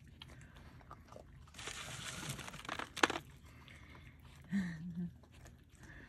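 Raccoons, a mother and her small kits, chewing and crunching peanuts and cookies. A crunchy rustle comes about two seconds in and a sharp snap at about three seconds. A brief low hum of a person's voice comes near the end.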